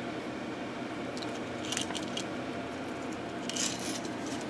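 A few short clicks and rustles of small objects being handled, about two seconds in and again near the end, over a steady background hiss.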